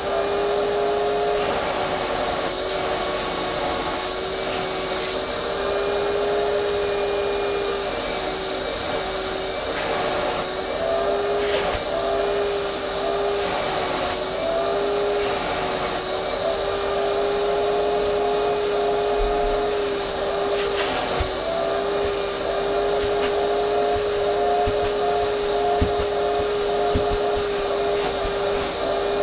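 Vacuum cleaner running steadily, its motor hum dipping briefly in pitch every few seconds, with a few faint knocks.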